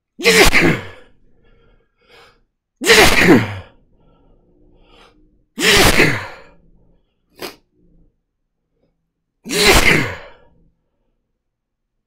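A man's sneezing fit brought on by chhinkni, a sneeze-inducing herbal snuff. Four loud sneezes come about three seconds apart, with quiet between them.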